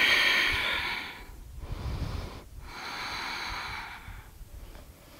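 A woman breathing deeply and audibly while holding a reverse plank: a long breath, a shorter one, then another long one, fading out near the end.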